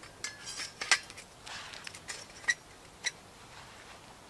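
Camp cookware and utensils being handled: a few sharp metallic clinks, the loudest about a second in, with a short rustle between them.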